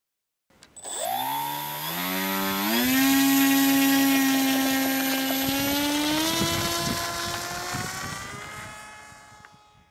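Skywalker 1900 RC plane's electric motor and propeller spooling up to full throttle for the takeoff run, a whine that rises in pitch in steps over the first couple of seconds. It holds steady, rises again about six seconds in, then fades as the plane flies away.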